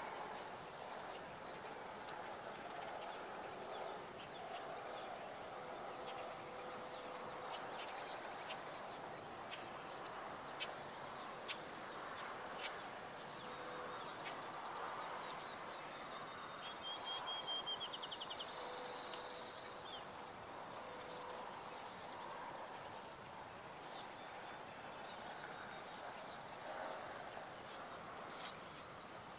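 Outdoor evening ambience: insects chirping steadily with a high, evenly repeating chirp, and scattered bird calls, including a louder rapid trill a little past halfway.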